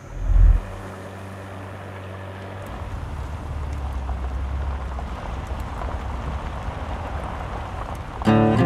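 A heavy thud from a wooden whiskey barrel being set down, then a steady low rumble that grows a little louder. Acoustic guitar music comes in near the end.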